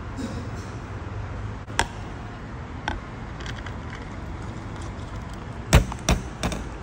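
Sharp clicks and knocks from the glass pickup door of a fresh orange-juice vending machine as it is pulled open and the cup of juice is lifted out. The three loudest come in quick succession near the end, over a steady low hum.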